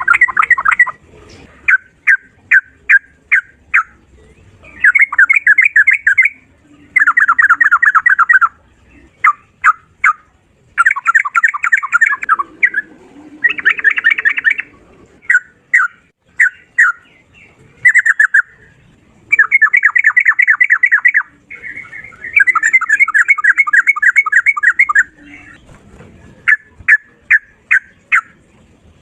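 Sooty-headed bulbul (trucukan) singing loudly in rapid repeated-note trills of one to two seconds, alternating with runs of short separate chirps.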